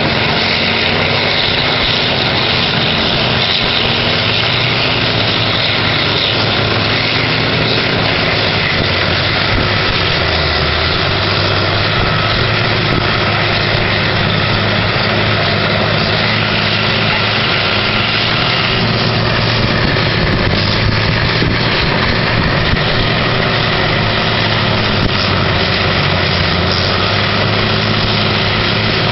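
Horizontal wood grinder running with an excavator working alongside: loud, steady machine noise over a constant diesel engine hum, without a break.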